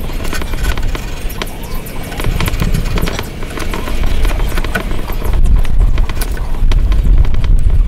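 Hand chisel paring a wood block, shearing off a curling shaving with scraping and many short crackles.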